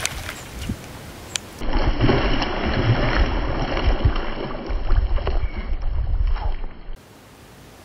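Water splashing and churning as a hooked fish thrashes at the surface of a weedy pond, with wind rumbling on the microphone. About seven seconds in it cuts off to a steady hiss.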